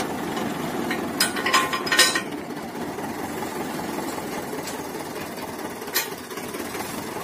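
A tractor's diesel engine idling steadily close by. Metal parts of the three-point hitch clink against each other in a quick cluster between one and two seconds in, and once more near the end, as the implement is hitched on.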